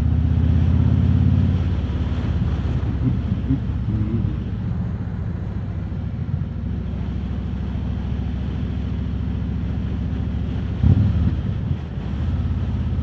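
Harley-Davidson Road King Special's V-twin engine running under way, with wind buffeting the microphone. The engine note eases about a second and a half in, and there is a brief louder blip about eleven seconds in.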